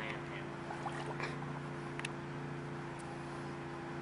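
Steady low mechanical hum, with a few short sharp clicks roughly a second apart.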